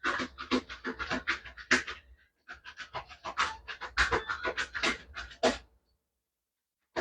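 Tarot cards being shuffled by hand: a quick run of soft slaps and rustles, about five a second, pausing briefly about two seconds in and stopping a little before the end.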